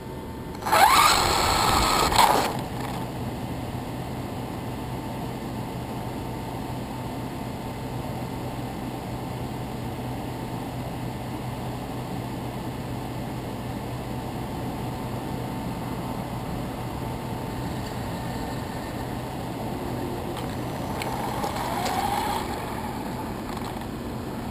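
Brushless motor of an Axial Exo RC buggy (Tekin RX8 ESC with a 4600kV four-pole motor on a 3S LiPo) whining as the throttle is punched about a second in, the pitch rising sharply, with tyre noise on concrete. In between comes a steady low hum and road noise. Near the end a shorter, softer burst of throttle makes the whine rise and fall again.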